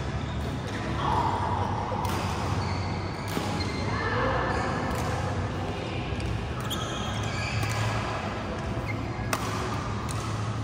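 Badminton rackets striking the shuttlecock during a rally in a large hall, irregular sharp hits over a steady low hum.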